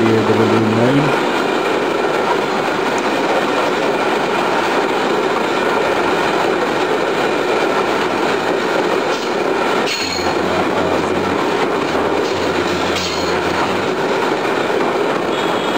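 Freight train of container flat wagons rolling past close by: a steady rumble and rattle of steel wheels on the rails, with a few sharper clanks near the middle and toward the end. A low hum cuts off about a second in.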